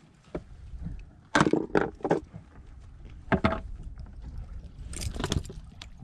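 Short bursts of clattering and metallic rattling as a freshly landed fish is unhooked from a jig and its hooks, in three bursts about one and a half, three and a half and five seconds in, over a low rumble.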